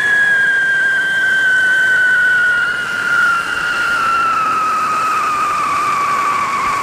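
Whistling siren firecracker shrieking: one long, loud whistle whose pitch sinks slowly throughout.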